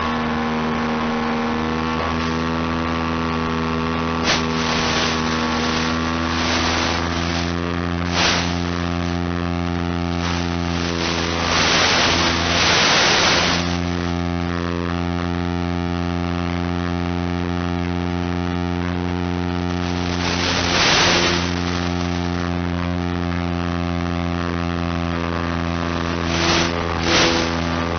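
A steady hum at an unchanging pitch, broken by several short bursts of hiss, the longest about halfway through.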